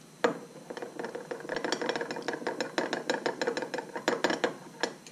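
Metal stir rod clinking and scraping against the inside of a glass measuring cup as liquid soft plastic is stirred, a rapid, irregular run of clicks, with one sharper knock about a quarter second in.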